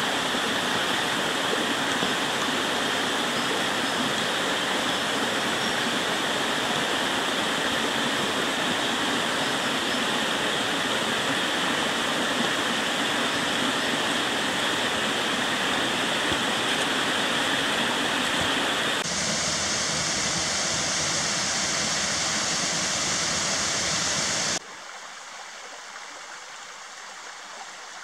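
Water of a shallow, rocky forest stream flowing over stones, a steady rush. It changes slightly about two-thirds of the way in, and shortly after drops to a much quieter flow.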